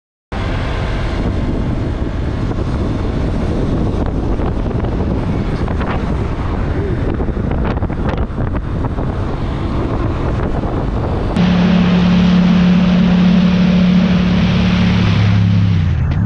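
Motorcycle engine running while riding, with heavy wind noise buffeting the microphone. About eleven seconds in the sound changes to a louder, steady engine drone held at one pitch, as when cruising at constant speed.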